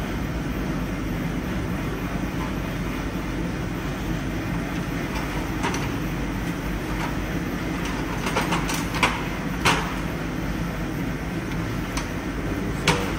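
Steady low background rumble of a garage workshop. A few short sharp clicks stand out: one about halfway through, a quick cluster about two-thirds of the way in, and one more near the end.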